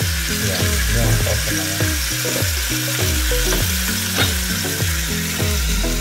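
Chicken thighs frying skin-side down in their own fat in a Saladmaster electric skillet at 230 °C, with no oil added: a steady, even sizzle. Low tones repeat underneath about twice a second.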